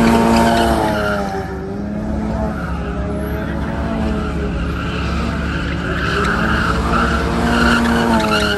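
A car spinning donuts: its engine revs up and down in waves every two to three seconds while the rear tyres squeal and skid on the asphalt.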